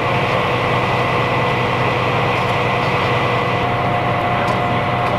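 Heavy emergency-vehicle engine running steadily: a constant low drone with a thin, steady whine above it.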